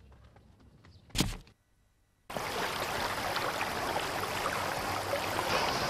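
Steady flowing-water ambience of a pond or stream, cutting in suddenly about two seconds in. Before it comes one short thump and a moment of silence.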